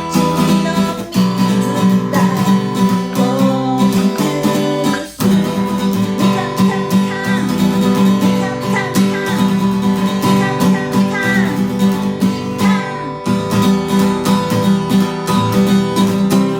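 Acoustic guitar strummed hard and fast in a steady chord rhythm, with a brief break about five seconds in.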